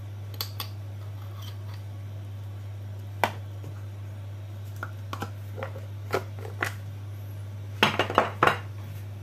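Scattered clicks and knocks of a metal spoon against a glass jar and a plastic bowl as minced garlic is spooned onto chicken wings, with a quick cluster of louder clicks near the end. A steady low hum runs underneath.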